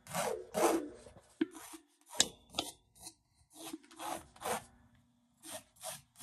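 Pencil scratching on drawing paper in a run of short strokes as rings are drawn freehand, with a sharp tick a little after two seconds in.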